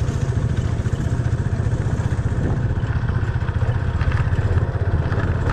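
Motorcycle engine running steadily as the bike rides over a rough dirt off-road track.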